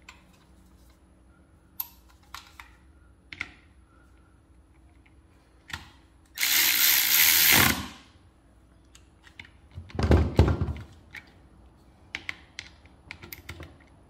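Hand tools clicking and knocking against an automotive A/C compressor on a concrete floor. A little past the middle comes a loud, steady hiss lasting about a second and a half, and a few seconds later a short burst of low, rumbling knocks.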